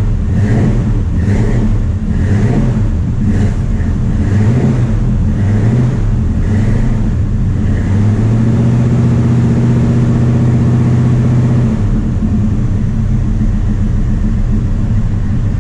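1984 Chevy C10's mildly built 350 V8 running just after catching on a start from long storage, still a little flooded. It runs unevenly at first, steadies at a higher speed for a few seconds past the middle, then drops back.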